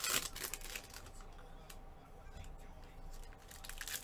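Light handling noise: a short rustle right at the start, then a few faint clicks and rustles over a thin steady hum.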